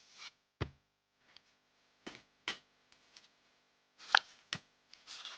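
Pokémon trading cards being handled: a handful of sharp clicks and taps of cards, with a soft thump about half a second in and the loudest click about four seconds in, and a little papery rustle near the start and end.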